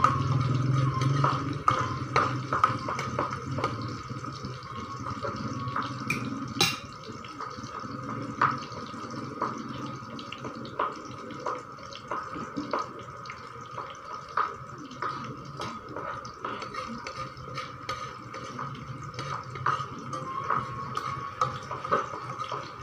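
Frying in a wok: a steady sizzle, with a metal spatula scraping and knocking against the pan at irregular moments.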